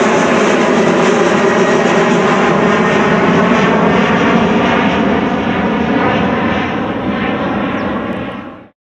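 Embraer ERJ190 jet airliner's General Electric CF34-10E turbofan engines running loud, a steady jet noise with several tones drifting slowly in pitch. It eases off a little after about five seconds and cuts off abruptly near the end.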